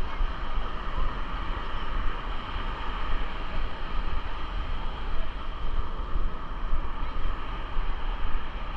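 Wind buffeting the camera microphone with a heavy rumble, over the steady hiss of ocean surf.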